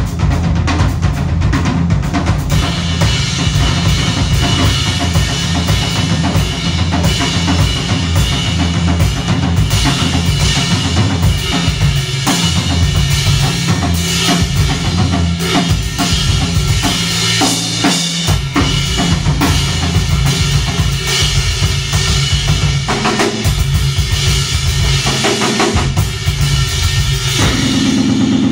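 A rock trio playing loudly, live: a drum kit with bass drum and snare played hard over electric bass and electric guitar.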